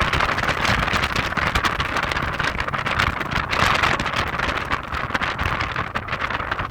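Heavy wind buffeting on the microphone of a moving Audi TT roadster: a steady rushing hiss with a crackling low rumble, over the car's road and running noise.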